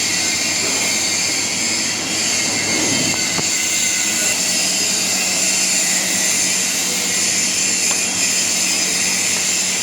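TIG welding arc on stainless steel: a steady high hiss with a faint steady hum underneath.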